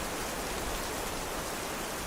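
Steady heavy rain, an even hiss with no distinct drops.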